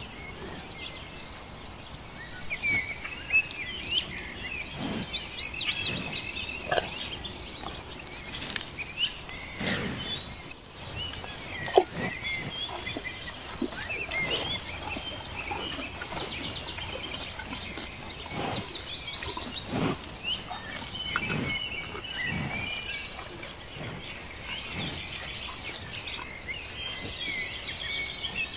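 Small birds chirping and calling continuously in outdoor ambience, with scattered short clicks through it. The sharpest click comes about twelve seconds in.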